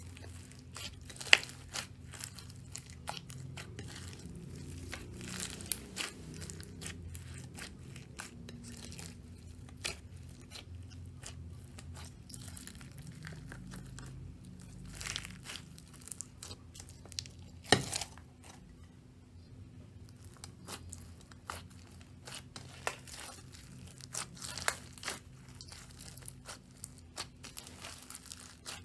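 Slime being squeezed and stretched by hand, giving irregular sticky crackles and sharp pops, over a faint steady low hum.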